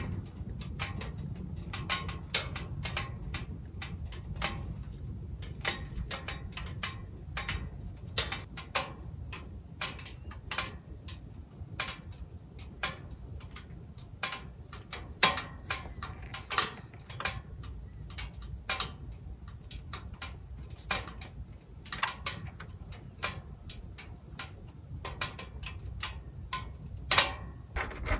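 Firewood crackling in the stainless wood stove's firebox: irregular sharp pops and clicks of varying loudness over a steady low rumble, with one louder crack near the end.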